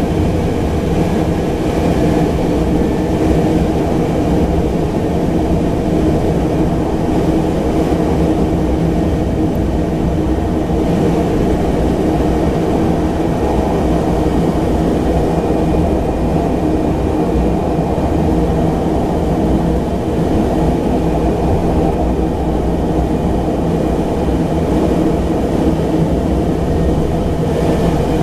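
Cabin noise of a Pilatus PC-12's single Pratt & Whitney PT6A turboprop running at taxi power, a steady drone with a faint high whine and no rise in power.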